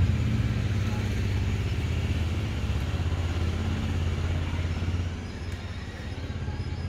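A motor vehicle's engine running as a low, steady rumble, louder for about the first five seconds and then dropping away.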